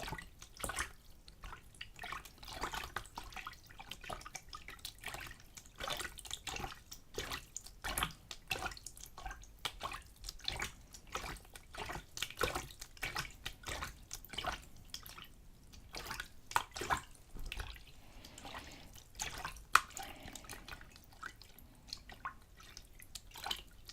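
A little water splashed back and forth by hand in a container, a quick, irregular run of small splashes and drips, with a few sharper splashes in the second half.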